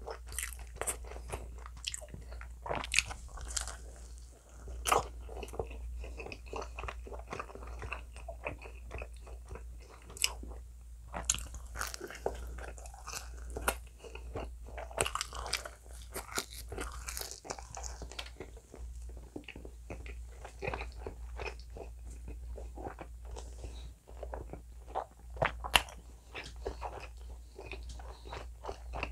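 Close-miked biting and chewing of pizza: irregular crisp crunches of the baked crust between bites and chews, with a steady low hum underneath.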